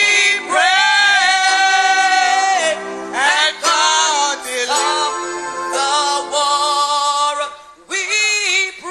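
Music with singing: a voice holding long, wavering sung notes over sustained backing chords, in phrases with short breaks between them.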